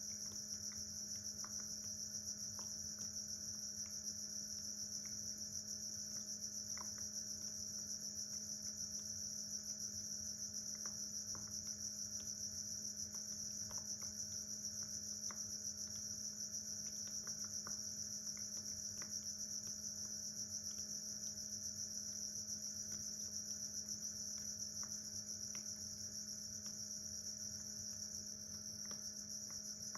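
Steady, unbroken chorus of crickets chirping, with a faint steady low hum beneath and a few faint scattered ticks.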